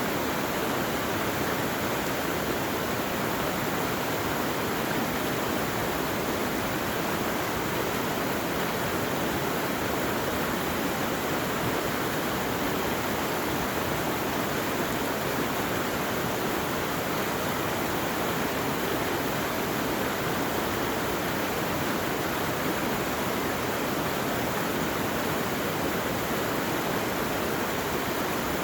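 Flowing water rushing steadily without a break.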